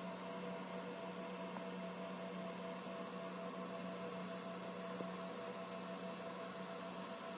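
The DIY CNC router's 500 W spindle motor running steadily, a faint electric hum with a few steady whining tones.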